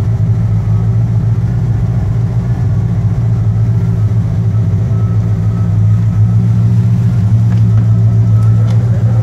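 1986 Corvette's 5.7-litre V8 idling steadily through a Borla Stinger cat-back exhaust, a deep even drone that gets a little louder about six seconds in.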